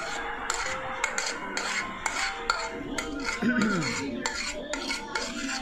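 Metal scraping and clinking as cooked rice is scraped and knocked out of a pressure cooker into a steel bowl: repeated, irregular scrapes and small knocks of metal on metal.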